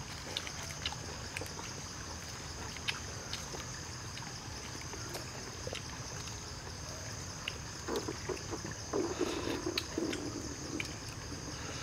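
Night insects chirring steadily over a trickling stream, with scattered small clicks. From about eight seconds in come closer eating sounds, as a snail is sucked from its shell.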